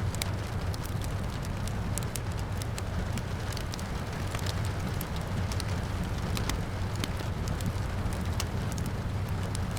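Wood fire crackling, with many sharp, irregular pops over a steady low rumble and the hiss of falling rain.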